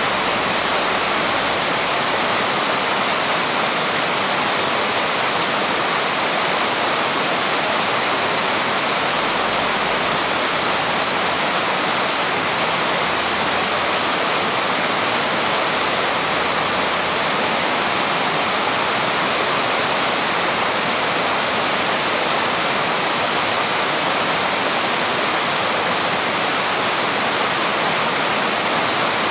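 Steady rush of a waterfall, water pouring over rocks in a constant, even hiss.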